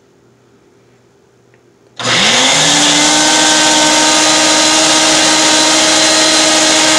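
Ninja countertop blender switched on about two seconds in: the motor spins up with a quick rising whine, then runs loud and steady, pureeing chunks of mini peppers, tomato, onion and mushrooms.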